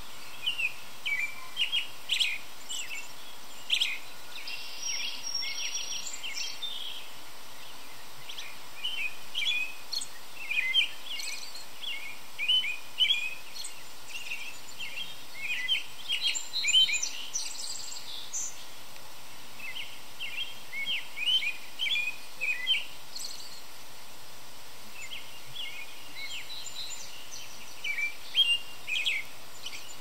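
American robin singing: bouts of short, quickly changing phrases lasting a few seconds each, with pauses between, over a faint steady background hiss.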